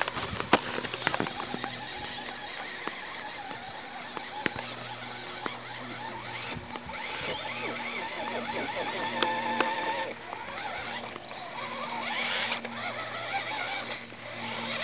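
Toy radio-controlled truck's electric motor and plastic gears whirring with a high whine as it drives over grass, stopping and starting several times, with scattered clicks.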